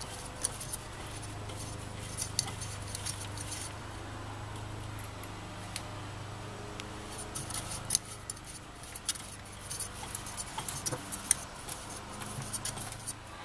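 Small clicks and scrapes of a plastic pump impeller being turned by hand onto the motor shaft, sparser for a few seconds midway and busier again in the second half, over a steady low hum.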